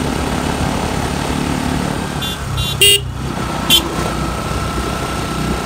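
Motorcycle engine running steadily under rushing air. Midway a horn gives about four short toots, the third the loudest.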